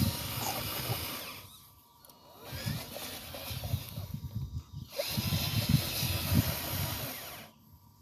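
Small electric motor and gearbox of an RC dump truck running in three bursts, with two short pauses, as the truck drives over loose dirt.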